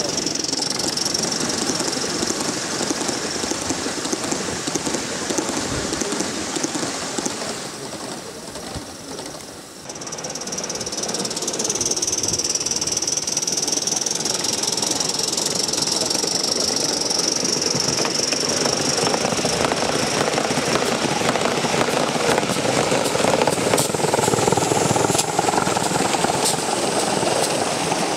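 Gauge 1 live-steam model locomotives running past on garden track: a rapid, rhythmic chuffing and clatter of wheels on rails, with a steady high hiss over it.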